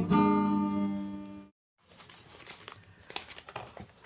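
Strummed acoustic guitar's last chord ringing out and fading, cut off sharply about one and a half seconds in. After that, only faint room noise with scattered small clicks.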